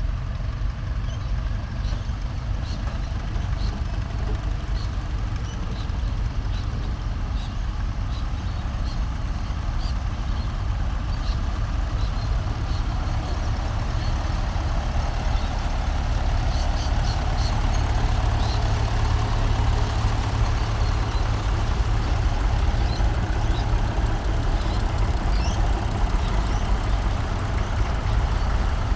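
Engines of a line of vintage tractors running steadily as they drive past one after another, a constant low rumble that grows somewhat louder in the second half.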